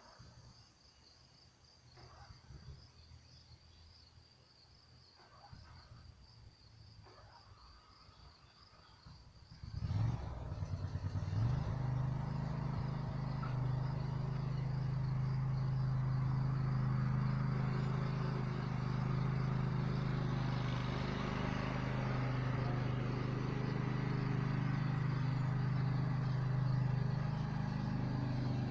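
Crickets chirping faintly, then about ten seconds in a riding lawn mower's engine cranks, catches and settles into a steady run.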